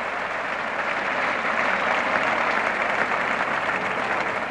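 Cricket crowd applauding a well-timed batting stroke: steady clapping from the stands.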